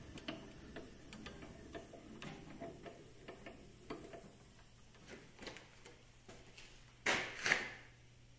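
Light irregular clicking from the handwheel mechanism on a Graule ZS 170 N console saw's head as it is turned by hand. Near the end come two short, loud hissing bursts.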